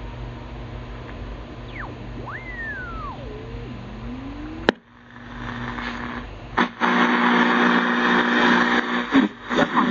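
Shortwave radio static from a Kentec BCL-1 communications receiver while it is being tuned: whistles sweep down and back up in pitch about two seconds in, a sharp click comes near the middle, then the hiss grows louder with a steady low tone, and a broadcast starts to come through near the end.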